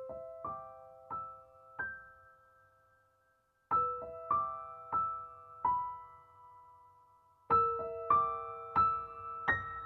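Soft piano music: three unhurried phrases of four notes each, every note struck and left to ring out and fade.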